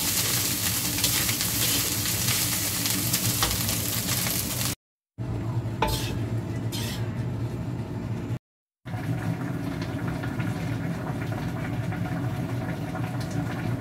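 Fried rice sizzling in a steel wok as a metal spatula stirs and scrapes through it, with scattered clicks of the spatula on the pan. About five seconds in, the sound cuts out twice briefly, and a quieter steady low hum with a few clicks carries on.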